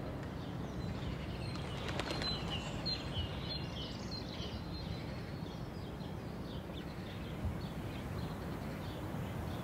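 Quiet outdoor ambience: a steady low background rumble with faint, high bird chirps, busiest in the first half.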